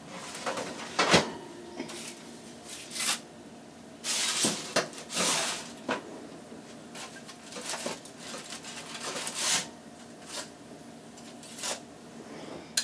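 A foil-lined sheet pan being slid into an oven: knocks and clatters of the metal pan against the oven racks, stretches of scraping and foil rustle, and a few more knocks toward the end as it is pushed home and the oven closed.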